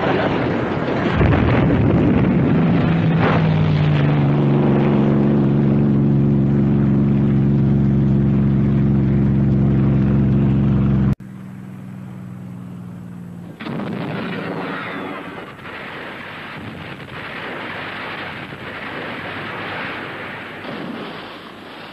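Naval gunfire and battle sound effects from a film soundtrack: a sharp shot rings out over a loud, steady drone of several held tones, which cuts off suddenly about eleven seconds in. Quieter rumbling and further knocks and shots follow.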